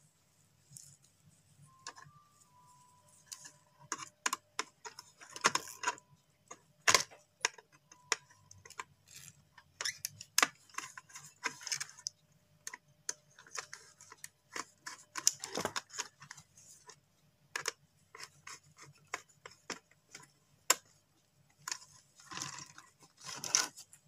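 Irregular small metallic clicks and taps, with a few short scraping rubs, as copper wire is handled and a screwdriver works the brass terminal screws of a switch-and-socket wiring board.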